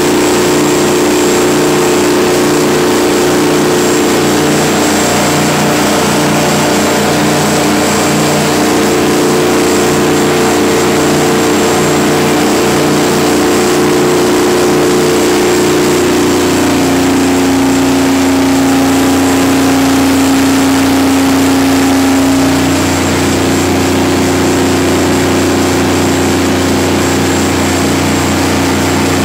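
Detroit Diesel 12V92 two-stroke V12 diesel engine of a 500 kW generator set running steadily under a load test. Its tone shifts slightly a little past halfway and again a few seconds later.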